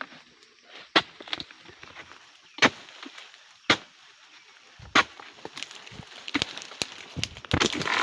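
A series of sharp chopping strikes into oil palm wood, a second or so apart and irregular, with a rustling, crackling stretch near the end.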